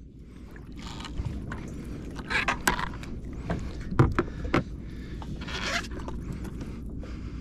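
Fishing reel worked during a fight with a hooked shark: irregular scratchy, zipper-like bursts and a few sharp clicks over a low rumble of wind and water.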